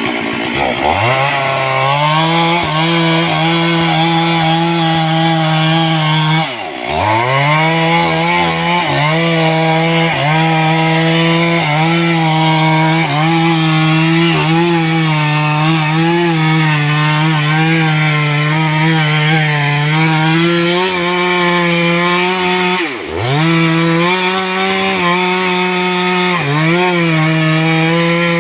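Stihl two-stroke chainsaw held at high revs, cutting into a tree. The engine revs up at the start, then twice briefly drops in pitch and picks up again, about a quarter and about four-fifths of the way through.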